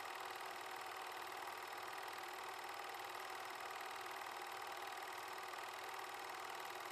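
8mm film projector running steadily: an even mechanical whirr and fine clatter of the film transport.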